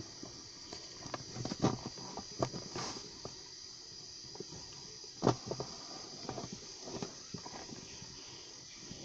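Pencil scratching on paper in short, irregular strokes, with scattered light taps and one sharper knock about five seconds in.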